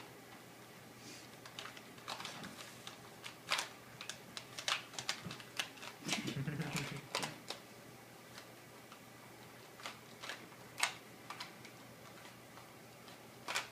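Plastic clicks and clacks of a Rubik's cube being turned by hand, coming in irregular clusters with short pauses between.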